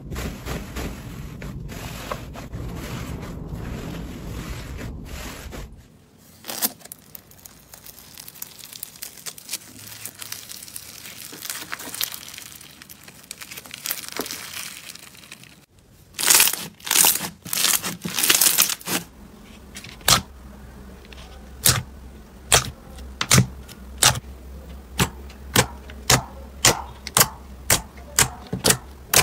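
Hands playing with slime. First a dried, crusted slime shell cracks and crackles as it is broken open. Then foam-bead slime (floam) is squeezed with a quieter crackling, and after a cut, fingers pressing into glossy slime give a run of sharp clicks and pops, settling to about two a second.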